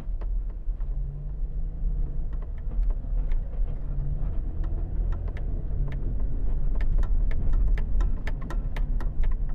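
Car moving slowly, heard from inside the cabin: a steady low engine and road rumble with a faint hum. Scattered sharp ticks come thicker in the second half.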